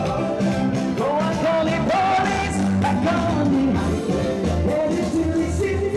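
Live band music: a man singing over electric bass guitar, drums and keyboards, with a steady beat.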